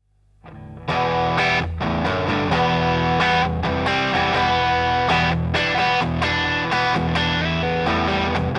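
Electric guitar played through a Catch 22 overdrive pedal, a Timmy-style overdrive, sounding chords and notes with a mild distorted edge. It comes in faintly and is at full level after about a second.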